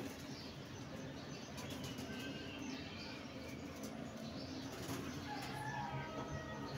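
Domestic pigeons in a wire aviary cooing low and steadily, with a few brief wing flaps and faint high chirps.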